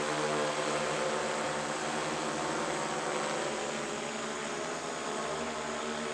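UAV America Eagle XF multirotor drone flying overhead, its propellers making a steady buzzing hum of several blended tones over a rushing hiss.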